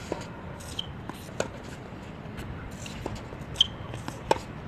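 Tennis rally on a hard court: racket hits and ball bounces, a sharp pop every second or so, the two loudest near the end, with scuffing footsteps and short squeaks between them.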